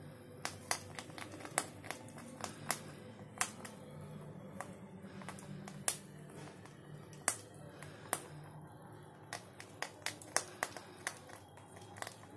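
Two rabbits nibbling a bar of milk chocolate, their teeth giving sharp, irregular clicks and crunches, a little more frequent near the end.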